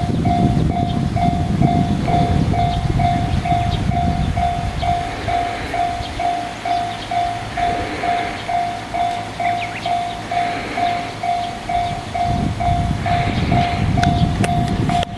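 Railroad crossing alarm sounding the JR standard electronic tone, a single ding repeating about twice a second, while a JR 211-series electric train rumbles over the crossing. The rumble eases about six seconds in and builds again near the end.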